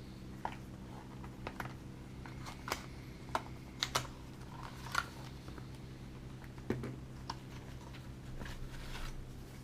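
Irregular light clicks and taps of hands handling a small boxed camera and its foam and plastic packaging, over a steady low hum.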